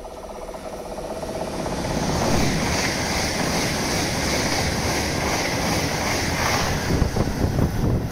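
Two coupled regional electric multiple units passing close through a station at speed. The rush of wheels on rails and air builds over the first two seconds, then holds steady and loud.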